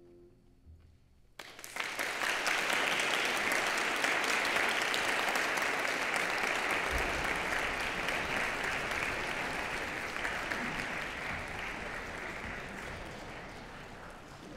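A last piano chord dies away, then an audience breaks into applause about a second and a half in; the clapping holds steady and slowly fades toward the end.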